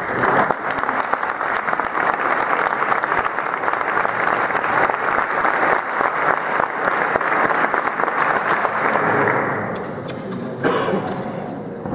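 Audience applauding, a dense clatter of many hands clapping that starts at once and dies away near the end.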